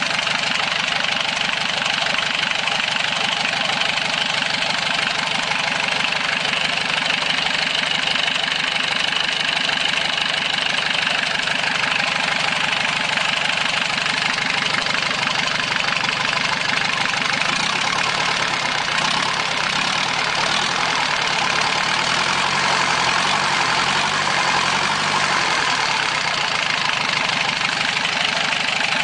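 A vehicle engine idling steadily and evenly, with no revving.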